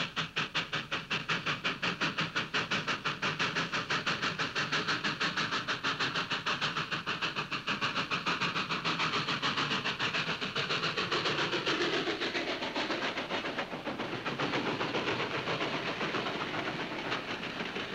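Steam locomotive at speed, its exhaust chuffing in rapid, even beats, several a second. In the second half the beats blur into the steadier rush and rumble of the train rolling past.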